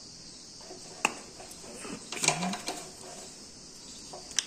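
Plastic wiring-harness connectors on a Bajaj Pulsar 150 BS6 being handled and unplugged by hand. There is a sharp click about a second in, a cluster of clicks and rattles a little past halfway, and another click near the end.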